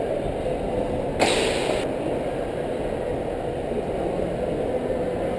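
A high jumper landing on a foam landing mat: a sudden soft impact about a second in, followed by a brief noisy rush lasting about half a second. Beneath it runs a steady low background din.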